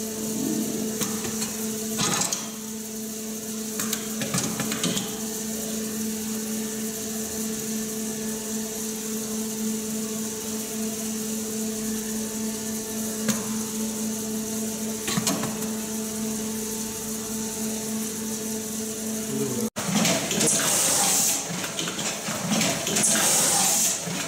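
J.A.M. CPR Zero ST WP automatic wire cut-strip-crimp machine running: a steady electric hum with a constant hiss over it and a few sharp mechanical clicks. Near the end the sound cuts abruptly to a louder, busier clatter and hiss of the machine working.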